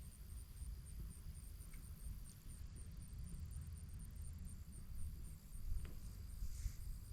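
An insect, likely a cricket, chirping in a very high, even rhythm of about three chirps a second, over a low rumble.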